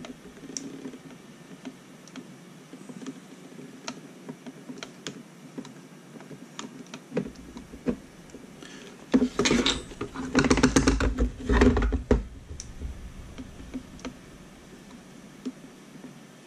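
Small clicks and taps from an opened plastic RC transmitter case being handled, with a louder run of rapid knocks and rattles from about nine to twelve seconds in.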